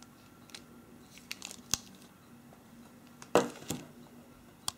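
Clear plastic bag around a phone battery crinkling as it is handled, with a few sharp clicks and rustles as it is set down on a table: a sharp click under two seconds in, two louder rustles a little past three seconds, and a last click near the end.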